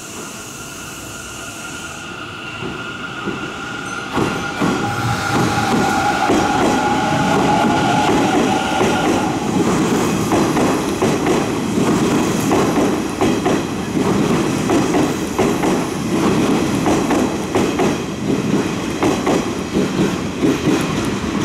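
Hanshin 1000 series electric train running in close past the platform. It grows loud about five seconds in with a whine that falls in pitch, then a rumble with rapid clicks as the wheels pass over the rail joints.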